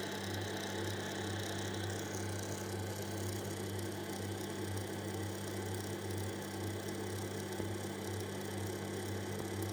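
Monoprice MP Select Mini V2 3D printer running a home-axis move: a steady whirring hum from its fans and stepper motors as the head travels down toward the bed.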